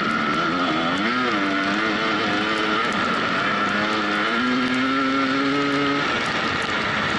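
Dirt bike engine running and changing revs, with a quick rise and fall about a second in, then a steadier, higher note that holds from about four seconds and drops away near six seconds, over a steady rush of noise.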